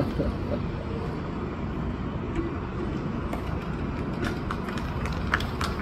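Steady low outdoor rumble, with a few faint short clicks near the end.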